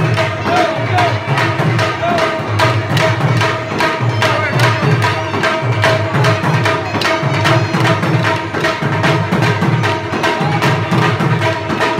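Live folk drumming on a dhol-type barrel drum keeping a steady, driving beat, with many sharp clacks of wooden dance sticks struck together and a pitched instrument holding a high, wavering melody note over it.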